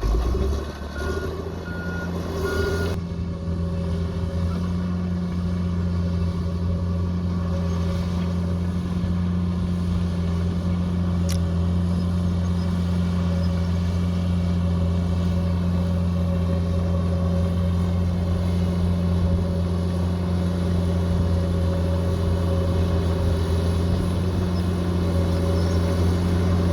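Bulldozer's diesel engine running steadily, with three short reversing beeps in the first few seconds.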